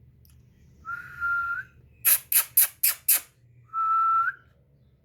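African grey parrot whistling two level notes, each a little under a second and flicking upward at the end, with a quick run of about five sharp clicks between them.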